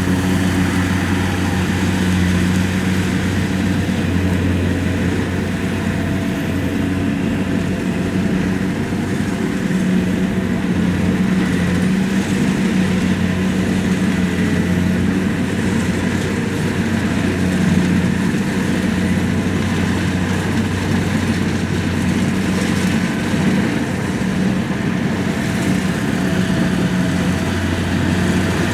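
Rice combine harvester's diesel engine running steadily while it harvests, a continuous low mechanical hum with the level rising and falling only slightly.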